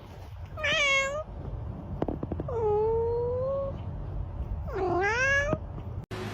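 A cat meowing three times: a short meow about half a second in, a longer drawn-out one in the middle, and a rising meow near the end.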